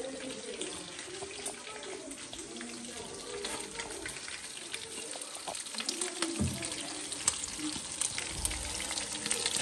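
Spiced fish pieces frying in hot oil in a wok-shaped metal pan: a steady sizzle dotted with many small pops and crackles.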